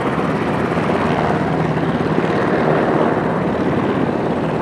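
UH-60 Black Hawk helicopter taxiing, its twin turboshaft engines and main rotor running in a loud, steady din.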